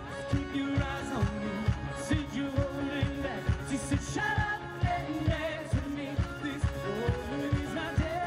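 Live band playing an upbeat pop-rock song: a drum kit keeping a steady beat about twice a second, with guitars, keyboard and singing.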